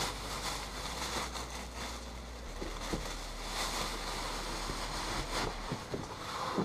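Plastic wrapping rustling and crinkling as it is pulled and handled around a boxed wheel, with a few light knocks.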